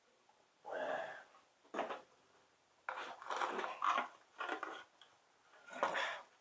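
Intermittent scraping and rattling of a stuck engine part being worked loose by hand, in several short bursts with the longest run in the middle.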